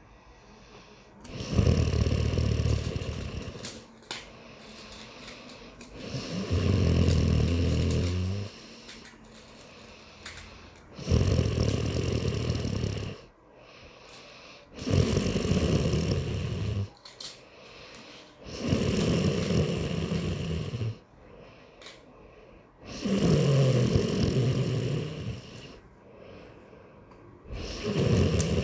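A man snoring loudly and regularly: seven long snores, about one every four seconds and each about two seconds long, with quieter breathing between them.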